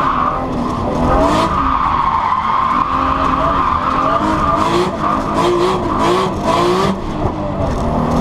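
Modified single-turbo RB26DETT straight-six of a Nissan Skyline GT-R R32 N1, heard from inside the cabin, pulling hard, its pitch rising and falling as the car slides through a bend, with the tyres squealing over it. A run of short, sharp cracks comes between about five and seven seconds in.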